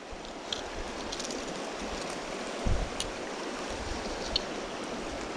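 Shallow mountain trout creek running over rocks, a steady even rushing of water. About two and a half seconds in there is one short low thump, with a couple of faint clicks.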